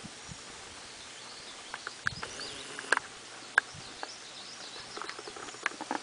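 Outdoor ambience: scattered sharp clicks and taps, irregular and a fraction of a second apart, with faint bird calls in the background.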